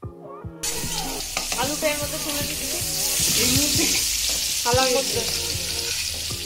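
Potato pieces sizzling as they fry in hot oil in an aluminium kadai, starting about half a second in. A metal spatula scrapes and stirs them against the pan as the fried pieces are lifted out.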